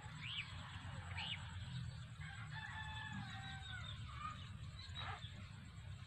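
A rooster crowing once in the distance, a held call of about a second and a half starting about two seconds in, with a couple of short bird chirps before it and a steady low rumble underneath.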